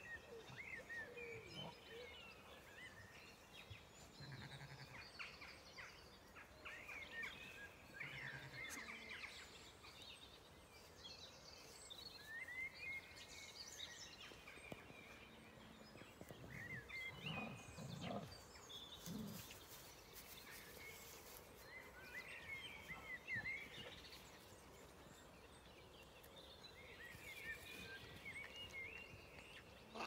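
Faint morning birdsong from several songbirds at once: many short chirps, trills and sliding notes throughout, with a few brief low sounds a little past the middle.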